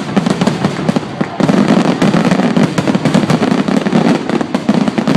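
Fireworks finale: a loud, continuous barrage of aerial shell bursts and crackle, many reports a second overlapping with no gap.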